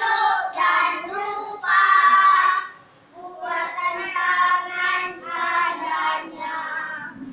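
A small group of boys singing together without accompaniment, in held notes, with a short break about three seconds in.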